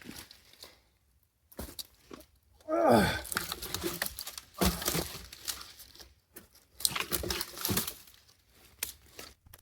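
Irregular rustling, crinkling and knocking of objects being handled, with gaps of quiet between them, and a brief sound falling in pitch about three seconds in.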